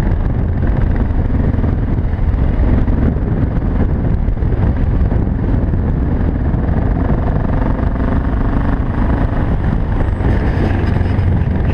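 BMW F650GS single-cylinder engine running at a steady cruising pace while the motorcycle rides along, with wind buffeting the microphone.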